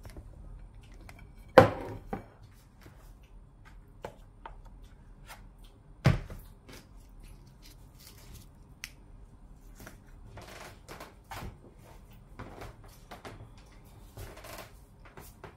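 Items being handled and set down on a kitchen countertop: a sharp knock about a second and a half in, the loudest, another about six seconds in, then light clicks and rustling.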